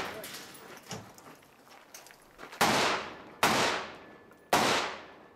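Rifle shots fired in a timed string: the ringing tail of one shot at the start, then three sharp reports about two and a half, three and a half and four and a half seconds in, each echoing away over about half a second.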